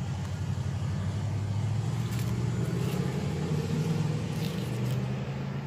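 A motor vehicle engine running steadily, its low hum rising slightly in pitch through the middle.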